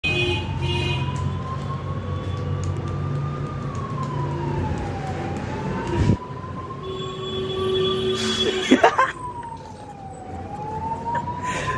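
A siren wailing, its pitch slowly rising and falling about every five seconds, with a sharp knock about six seconds in.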